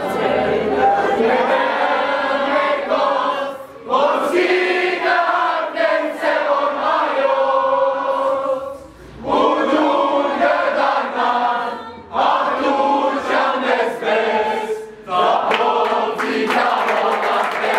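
A crowd singing together in unison, loud phrases with short breaks between them every few seconds.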